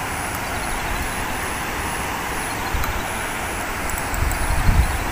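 Steady hum of distant road traffic, with a few low rumbles near the end and a faint high-pitched tone pulsing on and off about twice a second.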